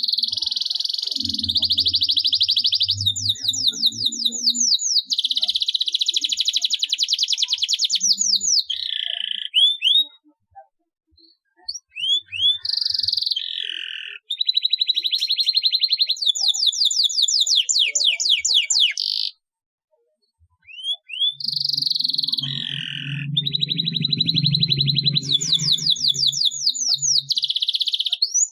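Domestic canary singing a long rolling song of rapid trills and quick rising sweeps, in three long bouts broken by two short pauses.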